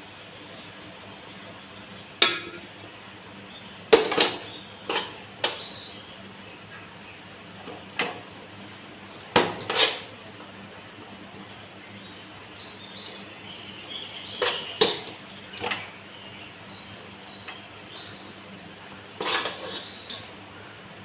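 A serving spoon knocking and scraping against the pots as cooked rice is spooned out and spread over the biryani layer: short irregular clinks and taps, some in quick pairs.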